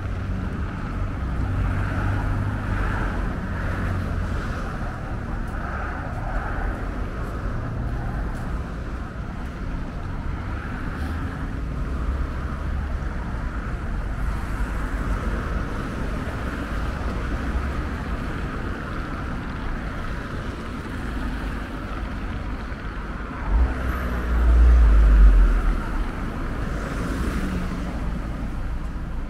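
City street ambience: steady traffic noise, with a loud low rush of wind buffeting the microphone for a couple of seconds near the end.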